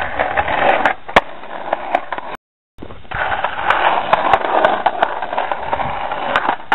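Skateboard wheels rolling over a concrete sidewalk, a rough steady rolling noise broken by several sharp clacks of the board. The sound cuts out briefly about two and a half seconds in, then the rolling starts again.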